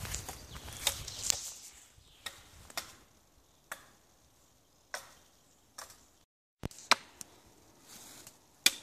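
Sharp, separate chops of a small blade cutting a point on a wooden stake held against a tree stump, about ten strokes at irregular intervals of roughly one a second. Footsteps rustle through leaf litter in the first two seconds.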